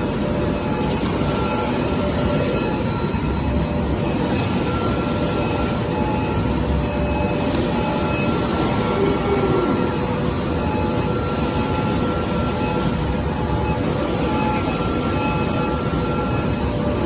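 Automatic folder gluer for corrugated cartons running steadily: a dense, even mechanical rumble with a faint whine that comes and goes every second or so.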